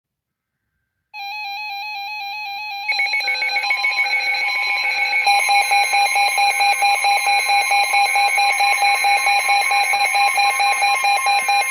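Electronic emergency-alert tones announcing a severe thunderstorm warning. After about a second of silence a single warbling tone sounds; about three seconds in, a rapid pulsing alarm of several tones joins it and grows louder a couple of seconds later.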